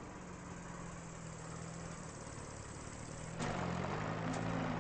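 A vehicle engine idling with a steady low hum. About three and a half seconds in there is a click, and the engine becomes louder after it.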